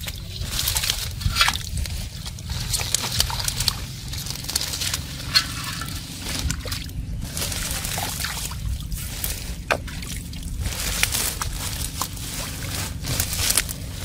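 Hands squelching and splashing through wet mud and shallow water, with irregular sloshes and sharp wet clicks, over a steady low rumble.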